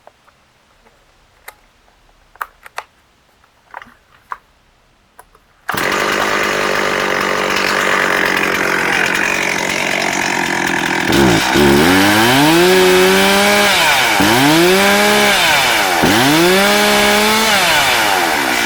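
A Stihl MS360 Pro two-stroke chainsaw. A few faint clicks and knocks come first, then about six seconds in the saw comes in suddenly, already running steadily. In the last third it is revved three times, each rev rising in pitch, holding, then falling back.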